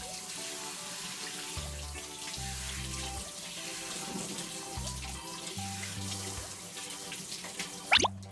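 Tap water running steadily into a bathroom washbasin as hands are rinsed under it, over children's background music. About eight seconds in the water stops as the tap is turned off, with a quick sliding tone effect, the loudest sound.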